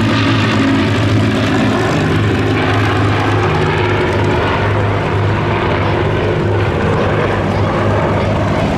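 Rolls-Royce Merlin piston engines of the Avro Lancaster, Hawker Hurricane and Supermarine Spitfire running steadily as the formation flies past. It is a loud, continuous multi-engine drone whose pitch shifts slightly, growing duller in the second half.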